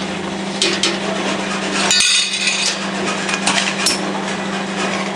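Metal screws clinking and clattering in a running fastener coating machine over a steady machine hum, with scattered sharp clicks and a louder clack about two seconds in.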